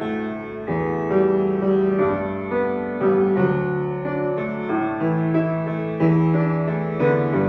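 Upright piano played solo: chords struck roughly once a second over held low bass notes.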